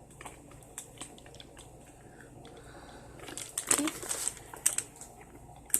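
Wrapping crinkling as a handbag is handled, with a burst of rustling a little past halfway and a few short, sharp clicks near the end.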